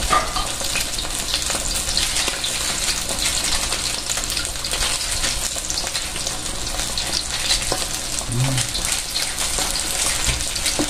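Chicken pieces frying in hot oil in a wok: a steady sizzle with constant small crackling pops.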